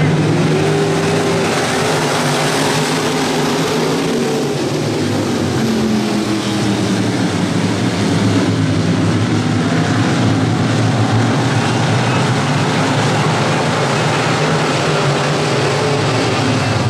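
A pack of dirt-track street stock race cars racing around the oval, their engines running loud and steady, rising and falling in pitch as they come through the turns.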